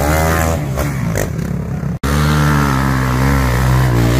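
Off-road quad engine running with its pitch rising and falling as the throttle is worked, clawing up a muddy climb. The sound breaks off for an instant about halfway through, then the engine carries on revving.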